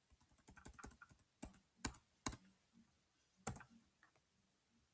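Faint computer keyboard keystrokes: a quick run of key presses about half a second in, then a few single taps spaced out.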